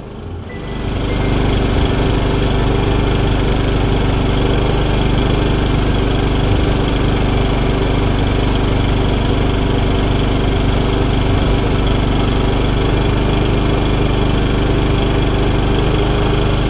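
Portable propane generator's small engine running steadily at a constant speed with a droning hum.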